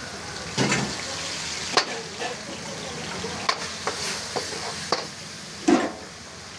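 A steel ladle knocking and scraping against a wok as chicken lollipops are stirred in sizzling Schezwan sauce. Under a steady sizzle come about six sharp clanks at uneven intervals, the loudest about half a second in and near the end.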